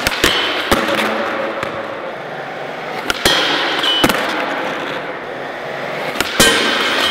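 Skateboard on Independent Stage 11 trucks rolling over a smooth concrete floor, a steady rumble of the wheels, broken by about eight sharp clacks of the board and trucks striking a metal rail and landing. The clacks come in pairs near the start, around three seconds in and near the end.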